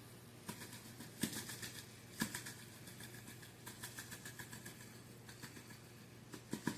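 Seasoning shaker shaken and tapped in quick runs of light rattling taps, with a few sharper knocks, as caked steak seasoning is knocked out of it in chunks.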